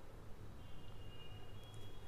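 Quiet room tone: a low steady hum, with faint thin high tones from about half a second in.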